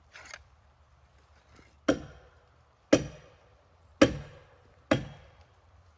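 Splitting maul striking splitting wedges four times, about a second apart, driving them in under a heavy beam. Each blow is sharp and rings briefly.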